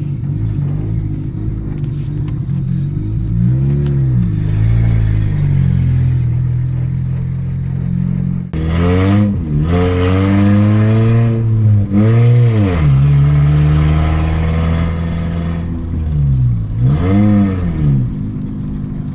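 1993 Honda Civic hatchback's four-cylinder engine running open, with no exhaust past the stock manifold, as the car drives. It holds steady at first, then revs up and falls back several times through the second half as the driver accelerates and shifts.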